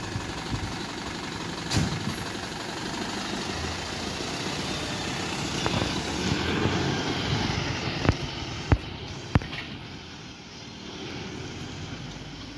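Diesel engine of a DAF LF refuse collection lorry running as the lorry drives off, its sound swelling around six seconds in. Three sharp knocks come in quick succession a little after eight seconds.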